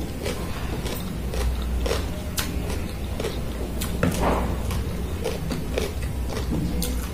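Close-miked chewing and crunching of green papaya salad, with a few sharp clicks of a metal spoon against the plate, over a low steady hum.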